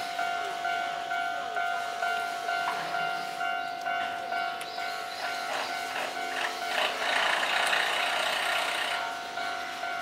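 Electronic level-crossing warning bell ringing in a steady repeating pattern of about two strikes a second, the crossing signal warning of an approaching tram. A rushing noise swells between about seven and nine seconds in.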